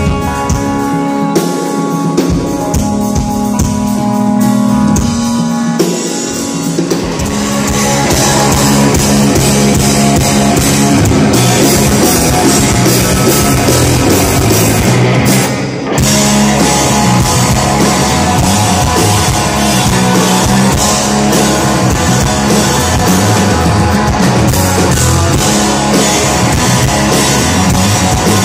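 Live rock band playing loud: a Telecaster-style electric guitar, bass guitar and drum kit. Held guitar chords over a sparser backing open it, then the full band comes in hard about seven seconds in, with a split-second stop about halfway through before it drives on.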